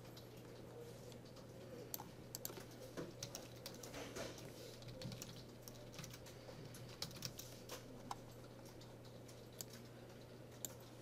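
Faint computer keyboard typing: irregular keystroke clicks in two short runs, the first a couple of seconds in and another about seven seconds in, over a steady low hum.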